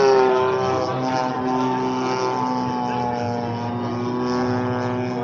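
Radio-controlled model airplane's spark-ignition engine and propeller running in flight, its pitch dropping at the start and then holding steady. The engine is misfiring and not running right, which the pilot thinks may be tied to freshly changed ignition batteries.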